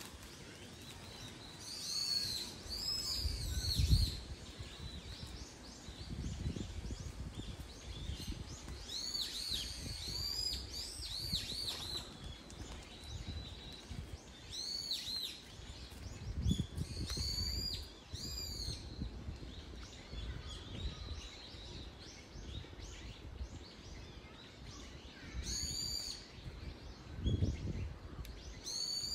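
Birds calling in short bouts of high-pitched, arched, repeated notes every few seconds, over a low rumbling noise, with the strongest rumble about four seconds in.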